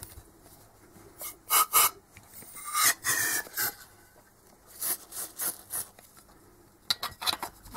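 Short hissing, scratchy noise bursts in a few clusters with quiet gaps between them, from oil being sprayed from an aerosol can into a Delphi common-rail injector body and the injector parts being handled.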